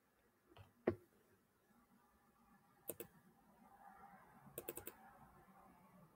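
Faint clicking at a computer: one sharp click about a second in, a double click near three seconds, and a quick run of four or five clicks a little past the middle.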